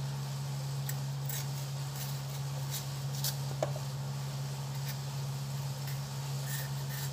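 Kitchen knife paring the skin off a chayote held in the hand: a few faint, irregular scrapes and ticks over a steady low hum.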